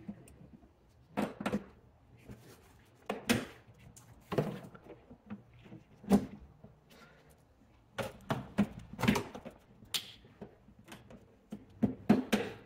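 Plastic push clips being pried out of a car's front plastic wheel-well liner with a hand tool: a string of irregular clicks and knocks of plastic, with several close together near the end.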